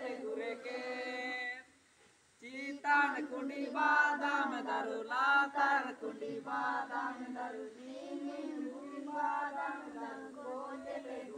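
A group of children chanting a game rhyme together in unison, with a short break about two seconds in before the chant picks up again.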